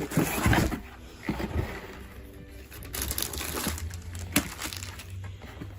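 Packaging being handled during an unboxing: irregular rustling and scraping with a few sharp clicks.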